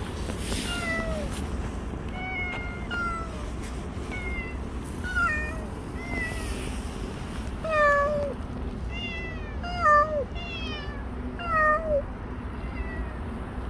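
A mother cat and her grown kitten meowing back and forth, about a dozen short calls that fall in pitch, the loudest in the second half: contact calls between cats that recognise each other's voices.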